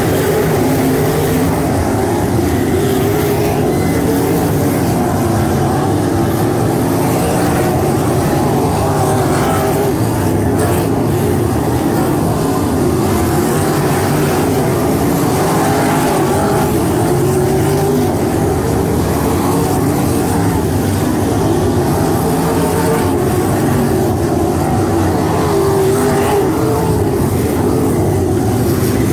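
A field of 305 winged sprint cars racing on a dirt oval, their 305-cubic-inch V8 engines running loud and steady together, several pitches shifting up and down at once.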